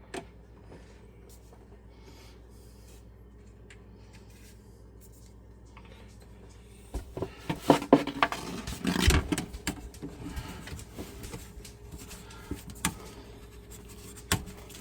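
A low steady hum for several seconds. About halfway through comes a burst of knocks, clatter and scraping as PEX pipe, fittings and tools are handled inside the sink cabinet, followed by scattered light clicks and taps.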